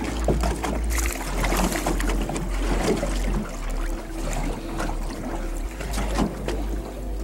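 Choppy lake water slapping and splashing irregularly against the side of a small boat, with a low rumble of wind on the microphone.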